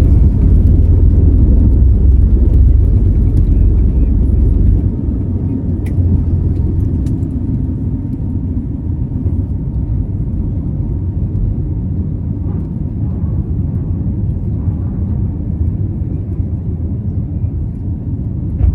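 Airliner cabin noise during takeoff: a heavy low rumble that drops away sharply about five seconds in, as the wheels leave the runway, leaving the steady rush of the jet engines in the climb.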